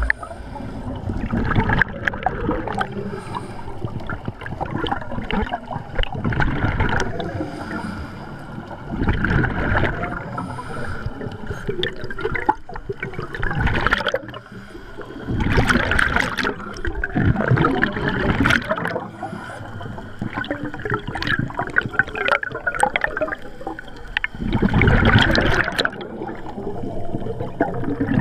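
Scuba divers' exhaled breath bubbling out of their regulators, heard underwater: gurgling bursts of bubbles that swell and fade every few seconds.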